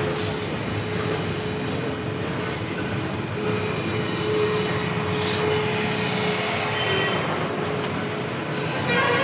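A machine running steadily, with a constant hum over a rough mechanical drone.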